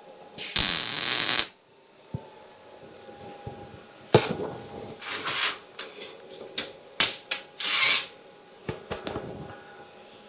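Short crackling bursts from a Miller MIG welder laying tack welds on steel: one loud burst of just under a second near the start, and shorter ones around the middle and later. Between them come scattered clicks and clanks of metal parts being handled.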